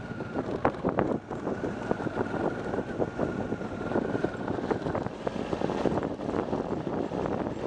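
Motorcycle riding over a rough gravel track: wind buffeting the microphone and a dense, irregular clatter of stones and bumps under the wheels. A faint steady whine runs through the first half.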